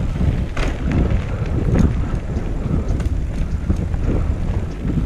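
Wind buffeting a GoPro's microphone over the low rumble of a recumbent trike rolling along a dirt trail, with scattered clicks and rattles.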